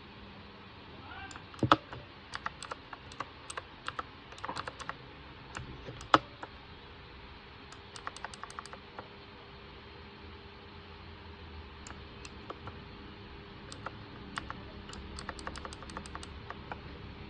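Typing on a K61 60% mechanical keyboard with blue switches: runs of sharp key clicks broken by pauses, with two harder keystrokes standing out, one near the start and one about six seconds in. Blue switches give an audible click on every keypress.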